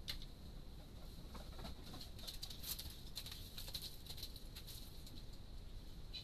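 Faint light clicks and pattering, most of them two to four seconds in, as an animal scrambles over the rocks and debris under a deck, over a steady faint high whine from the trail camera.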